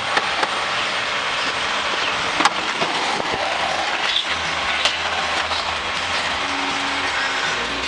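Mack LEU garbage truck with a Labrie side loader running on the street just ahead, heard from a following car as a steady mechanical rattle. Two sharp knocks come about two and a half and five seconds in, and a low hum joins just past four seconds.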